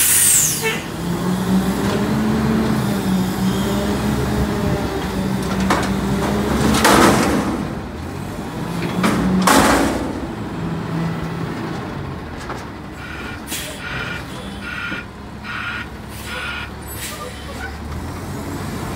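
Autocar McNeilus front-loader garbage truck's engine revving up and down to drive the hydraulic lift arms as a cardboard container is raised over the cab and dumped, with two loud bangs about seven and nine and a half seconds in as the container is emptied. A regular beeping sets in about two-thirds of the way through as the container comes back down.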